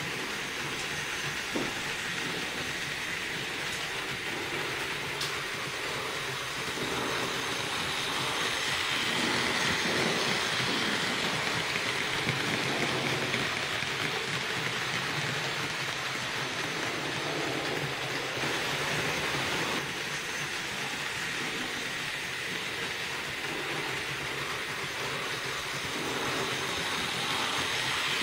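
HO-scale model freight train with a Trix DB V60 shunter running along the track: a steady rolling rattle of the wagons' wheels on the rails, louder through the middle as the wagons pass close.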